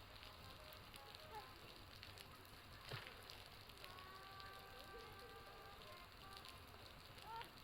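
Faint, irregular crackling clicks over a low hiss, with a sharper tick about three seconds in. A faint steady tone sounds for a second or so past the middle.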